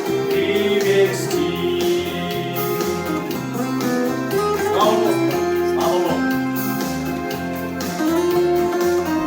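Music: acoustic guitar playing the instrumental ending of a Christian song after the last sung line.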